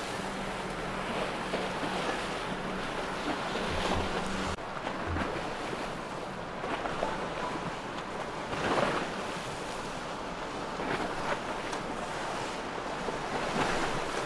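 Rushing sea water and breaking wash against a motor yacht's hull in a choppy inlet, with wind buffeting the microphone. A steady low hum sounds under it and stops abruptly about four and a half seconds in.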